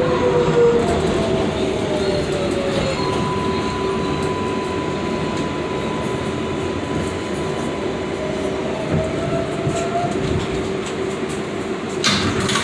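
7 line subway train running between stations, heard from inside the car: a steady rumble of wheels on the rails with the motors' whining tones, which glide upward and hold a steady pitch for several seconds. A short burst of noise comes near the end.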